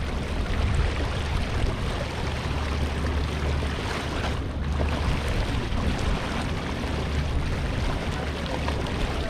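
Small fishing boat under way: a steady rush of water and wind noise with a constant low rumble underneath.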